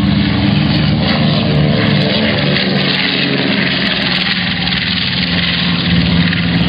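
Two-stroke gas engine and propeller of a large-scale RC aerobatic airplane running at a steady high throttle. The sound cuts off abruptly at the end.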